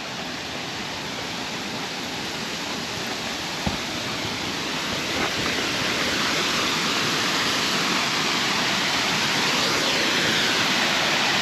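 Waterfall rushing in a steady roar of water that grows gradually louder as it is approached, with a single brief knock about four seconds in.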